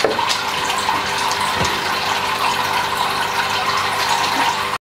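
Steady rushing noise like running water, with a faint low hum under it, cutting off suddenly near the end.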